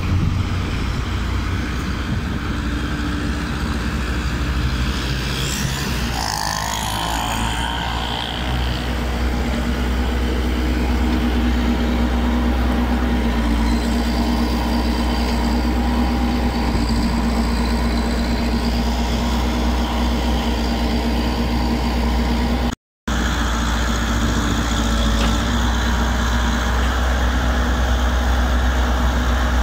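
Case Series 2 backhoe loader's diesel engine running steadily close by.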